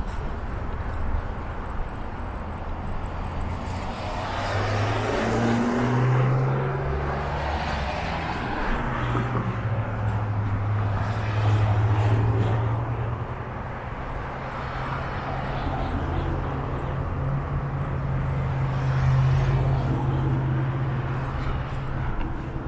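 Road traffic heard from a moving bicycle: a steady low hum, with louder swells as cars pass about 4 to 6 seconds in and again around 12 and 19 seconds.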